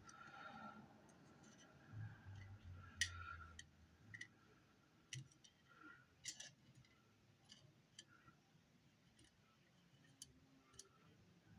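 Near silence broken by scattered faint clicks and light taps, irregularly spaced: small twirled wire design pieces being handled and set against a metal buckle.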